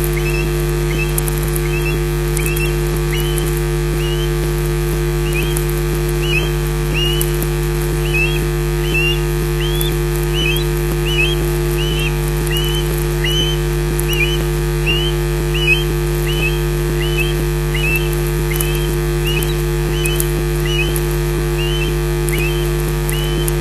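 Male osprey calling in his display flight: a long run of short, high whistled calls, about one or two a second. A steady electrical hum runs underneath.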